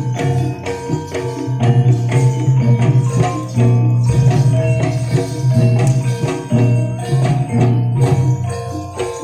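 Javanese gamelan-style jaranan music: metallophones ring out repeating melodic patterns over drums and jingling percussion.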